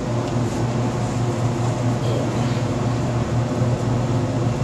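Steady low mechanical hum of a running machine.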